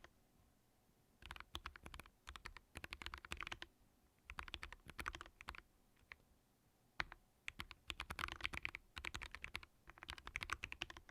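Typing on a Vortex Core 40% keyboard fitted with Kailh Custom Plastic key switches, its plate and PCB damped with PORON foam: quick runs of keystrokes in short bursts, broken by brief pauses and a couple of single key presses around the middle.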